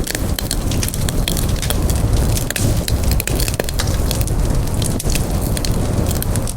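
Campfire burning, crackling with many irregular sharp pops over a low, steady rumble.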